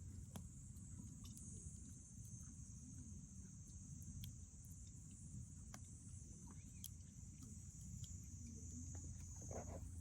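Faint, steady high chirring of insects, with scattered small pops and crackles from a wood bonfire.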